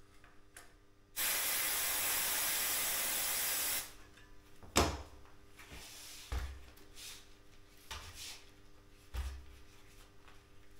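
Compressed air hissing steadily from a shop air hose for about two and a half seconds, starting and stopping abruptly. A few soft knocks and rubbing follow as the bicycle wheel and tyre are handled.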